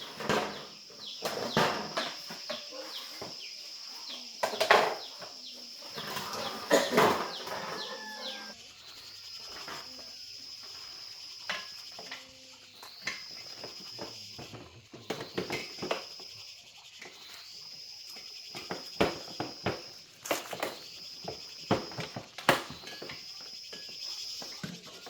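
Insects calling with a high, steady buzz. After the first few seconds it repeats as calls a couple of seconds long, each starting with a short rising slide. Scattered sharp clicks and knocks sound throughout, most densely in the first few seconds.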